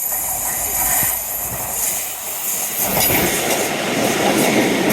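A passenger train running along the railway line, its noise growing louder about three seconds in.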